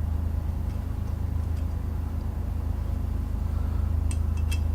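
Steady low hum, with a few light metallic clicks near the end as small metal parts are handled.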